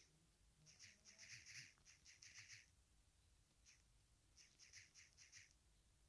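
Faint quick taps of typing on a smartphone's on-screen keyboard, in short runs with pauses between words.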